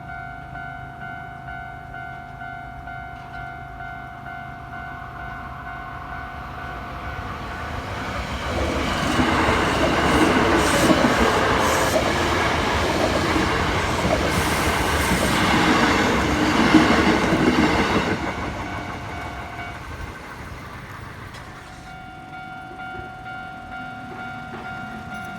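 Level-crossing warning bell ringing steadily while a Hankyu 7300 series electric train runs over the crossing. The train comes in about 8 seconds in, runs loud with wheel clatter for about ten seconds and fades after 18 seconds. The bell stops briefly near 20 seconds and starts ringing again about a second and a half later.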